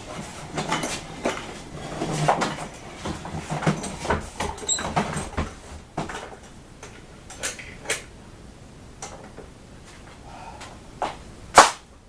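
Irregular clatter and knocks of household objects being handled, busiest in the first half, with one sharp loud knock near the end.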